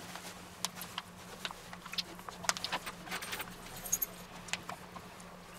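Scattered light clicks and scrapes of a silicone spatula pressing meat mixture into a thin aluminium foil tray held in a gloved hand.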